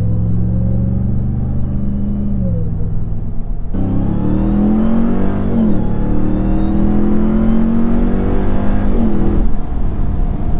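2022 Ram 1500 TRX on its stock exhaust, its supercharged 6.2-litre V8 heard from inside the cab. It cruises steadily at first, then about a third of the way in the throttle opens hard and the engine climbs through the revs, with an upshift near the middle and another near the end.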